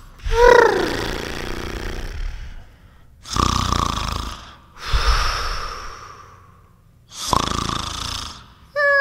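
A person snoring loudly: four long, rasping snores about every one and a half to two seconds, the first with a brief squeaky whistle in it. Chiming, bell-like music starts just before the end.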